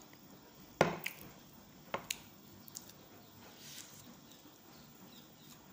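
Close-up eating sounds of someone chewing soft banana cake: a few sharp wet mouth clicks and smacks, the loudest a little under a second in and two smaller ones around two seconds in, then quiet chewing.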